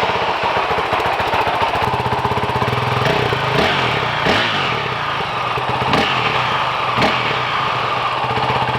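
2019 Honda CRF450L's single-cylinder four-stroke engine idling through its stock exhaust, revved briefly several times in the second half.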